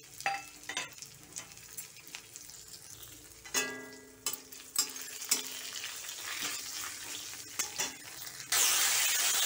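Dried red chillies, cumin seeds and curry leaves crackling and sizzling in hot ghee in an aluminium kadai, while a flat metal spatula scrapes and taps around the pan. Near the end a much louder, steady sizzling hiss sets in suddenly.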